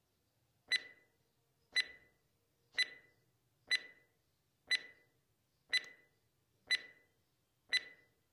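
Countdown timer sound effect: a short clock tick with a brief ring, once a second, eight in a row.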